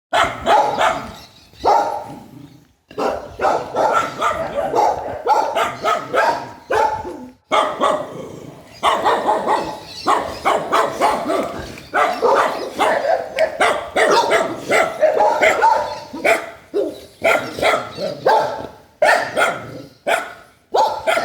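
Several dogs barking, loud and almost nonstop, their barks overlapping, with short breaks about three and seven and a half seconds in.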